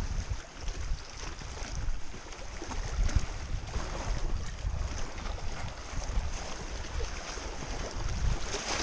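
Wind buffeting the microphone in uneven low rumbles, over small lake waves lapping and splashing against shoreline rocks.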